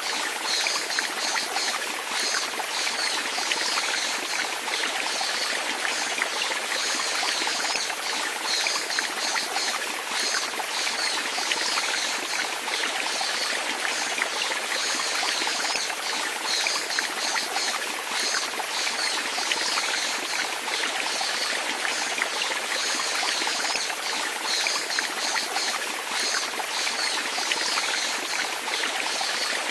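Water flowing steadily like a small stream, an even rush with fine trickling and splashing.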